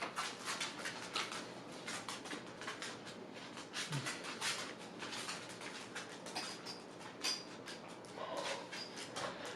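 Close-up eating sounds: wet chewing and lip smacks in quick irregular succession, with a few short high squeaks near the end.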